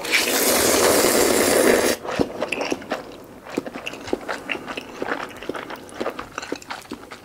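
A person slurps a mouthful of malatang noodles into the mouth with a loud rushing sound lasting about two seconds, then chews them, with many small mouth clicks.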